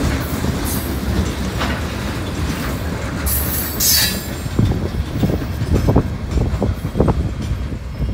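Loaded rock hopper cars rolling past, their wheels rumbling steadily over the rails, with a brief high squeal a few seconds in. Toward the end, sharp clacks mark the wheels passing over the rail joints and crossing as the last cars go by.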